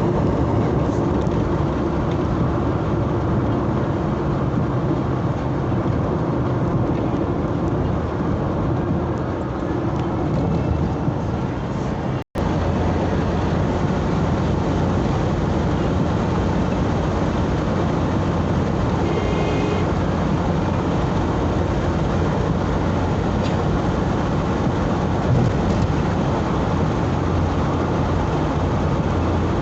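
Steady engine and road noise of a moving car, heard from inside the cabin, with a low hum under the tyre rumble. The sound cuts out for an instant about twelve seconds in.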